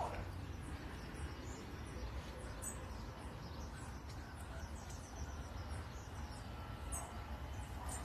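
Outdoor ambience: faint high-pitched chirps repeating several times a second from small birds or insects, over a steady low rumble.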